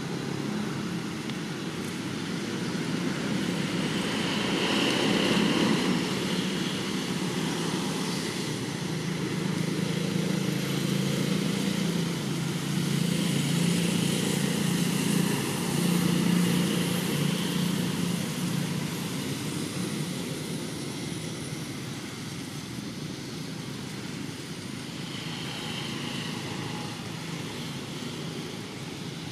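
Steady low engine drone from a distant motor, growing louder and fading again over the stretch, with a faint higher hiss swelling a few times above it.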